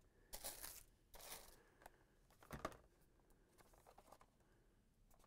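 Faint crinkling and rustling of cardboard-backed plastic blister packs being handled, in a few short bursts during the first three seconds.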